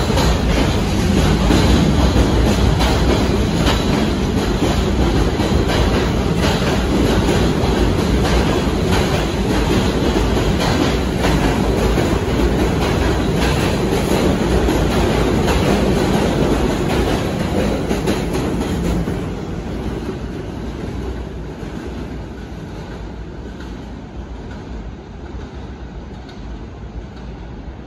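R68 subway train pulling out of an elevated station: a loud rumble with its wheels clicking over the rail joints. The sound fades away from about 19 seconds in as the train leaves.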